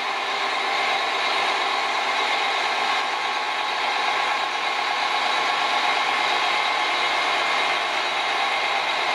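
Large Liebherr mobile crane's diesel engine running steadily under load as the crane swings the turntable span.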